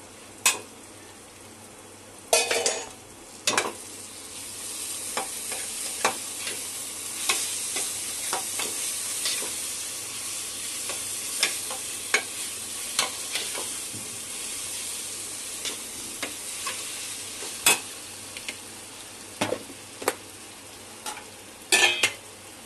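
Ginger-garlic paste and masala sizzling in hot oil in a stainless steel pot while a steel ladle stirs it, with the ladle scraping and knocking sharply against the pot. The sizzle grows louder about four seconds in and fades again after about fifteen seconds.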